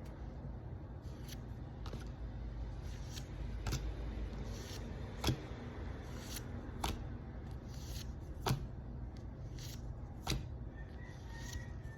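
Yu-Gi-Oh trading cards being flipped through one at a time, each card giving a short, sharp snap, about fifteen at an uneven pace of one or two a second, over a steady low hum.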